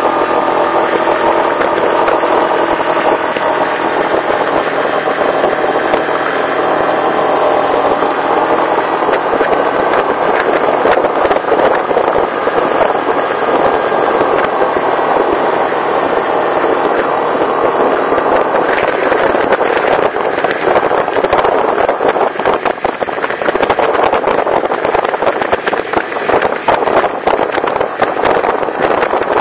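Yamaha Kodiak 450 ATV's single-cylinder four-stroke engine running steadily under way, with tyres on gravel. From about two-thirds of the way in, frequent rattles and knocks join the steady engine noise as the quad rides over rougher ground.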